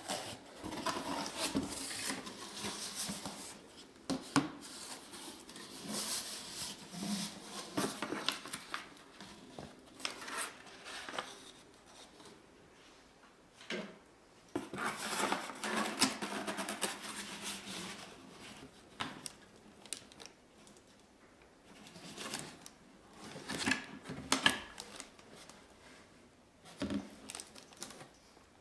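Hands and tools working on a guitar amplifier cabinet: irregular clicks, scraping and light knocks, with quieter pauses between bursts of handling.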